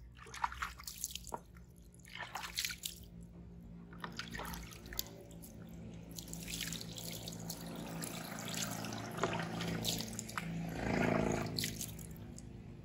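Water poured from a plastic scoop over a wet baby monkey, splashing and dripping onto a concrete floor, with scattered small splashes throughout; the loudest pour comes about eleven seconds in.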